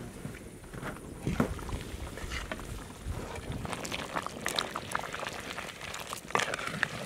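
Crab curry bubbling in a clay pot, with the knock and scrape of a ladle stirring it.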